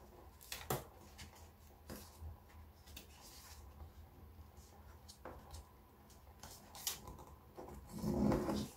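A sheet of origami paper folded and creased by hand: soft rubbing and crinkling with scattered small clicks, and a louder rustle near the end.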